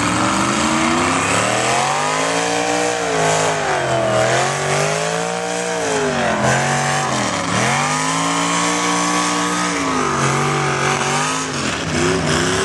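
Red Farmall tractor's engine under full load pulling a weight-transfer sled. Its revs swing up and down repeatedly, dropping sharply twice, about four and seven and a half seconds in, before climbing again.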